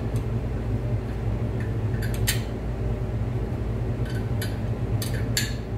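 Scattered metal clicks and clinks from a hand wrench turning the nut of a threaded-rod installer tool, pressing a harmonic balancer onto an LS V8 crankshaft snout. The clicks fall irregularly, about five in all, mostly in the second half, over a steady low hum.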